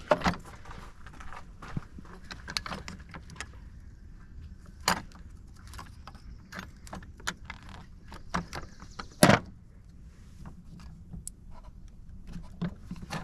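Scattered metallic clinks and knocks of tools and car parts being handled during a starter swap, with two sharper knocks about five and nine seconds in.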